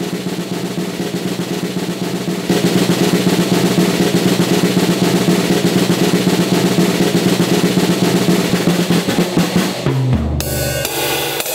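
Drum roll played with sticks on a drum kit, growing louder about two and a half seconds in, and finishing near the end with a low drum hit and a cymbal crash.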